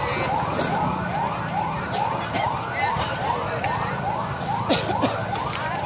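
A siren sounding in quick repeated rising sweeps, about two a second, with a few sharp knocks near the end.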